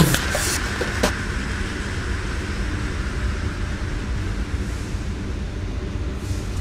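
U-Bahn train standing at an underground platform: a steady low rumble and hiss, with a few sharp knocks in the first second.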